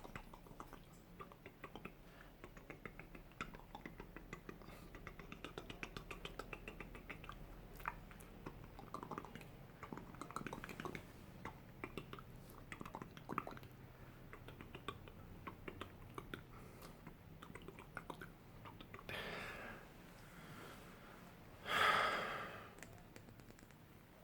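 Close-miked ASMR mouth sounds: a steady stream of small, irregular wet clicks and smacks. Near the end come two breaths, the second one loud.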